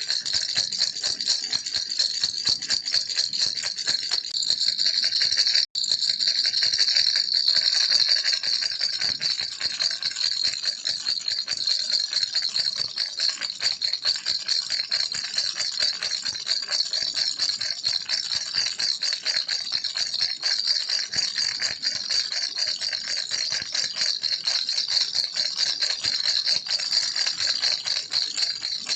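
Plastic baby rattle shaken continuously, a dense, rapid, high rattling with a brief break about six seconds in.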